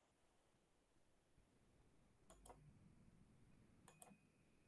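Near silence with a faint room hum, broken twice by a short double click, a little over two seconds in and again near the end.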